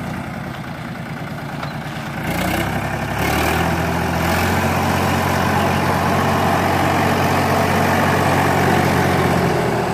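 Mahindra 275 DI tractor's three-cylinder diesel engine running at low revs, then revved up about three seconds in and held high and steady, working under load as the stuck tractor tries to pull out of the mud.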